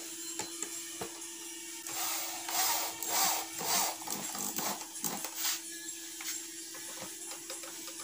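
Electric drill driving screws into the 12 mm plywood lid of a speaker box, running in several short bursts in the middle, to close the box.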